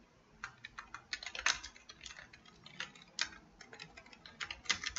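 Typing on a computer keyboard: irregular runs of quick keystrokes, starting about half a second in.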